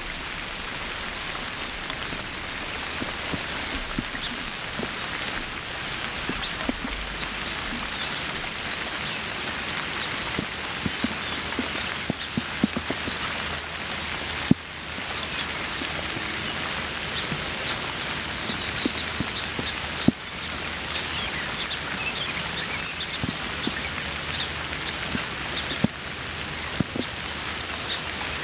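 Steady rain falling, with many individual drops ticking on the surfaces close by.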